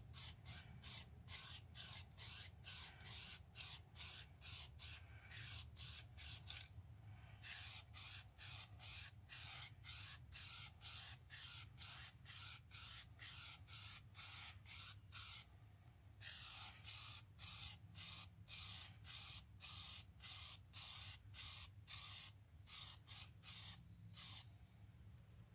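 Aerosol spray-paint can hissing in short, quick bursts, about two a second, with a couple of brief pauses.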